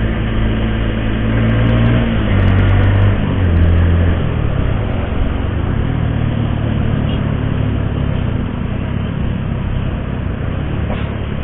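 Motorcycle engine running while riding in traffic, with road and wind noise. The engine note shifts up and down over the first few seconds, then holds steadier.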